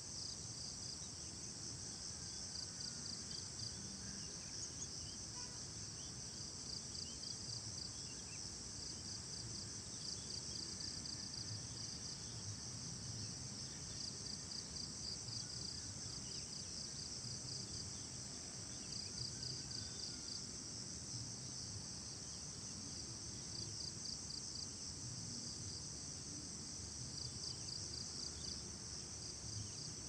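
Insects trilling in a steady, high-pitched chorus, a fast continuous pulsing that never lets up, with a low rumble underneath.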